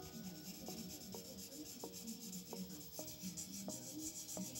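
Paper blending stump rubbed in rapid back-and-forth strokes over graphite shading on drawing paper: a faint, dry, scratchy rubbing. Faint background music with a note about every two-thirds of a second runs underneath.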